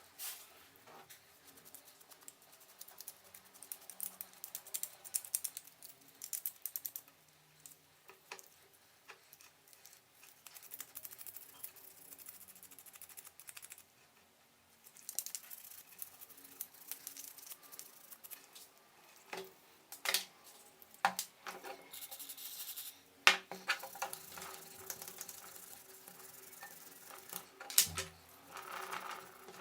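Light rapid clicking and scratching of hands and small tools working on blender parts, with several sharper knocks in the second half.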